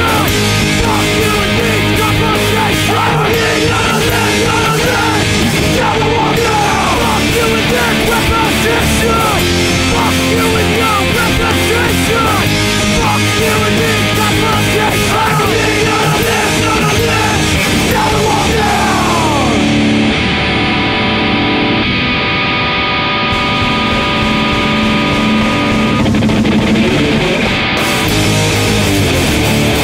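Loud rock song with electric guitar. Around twenty seconds in the treble drops away and long held chords ring for several seconds, and the full band comes back in near the end.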